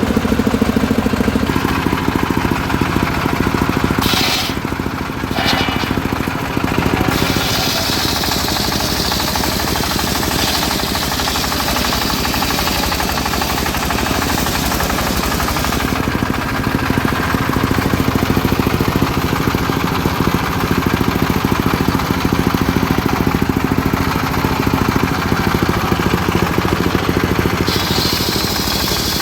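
Engine-driven homemade circular sawmill running steadily, with a higher hiss that comes in about seven seconds in, fades around sixteen seconds and returns near the end.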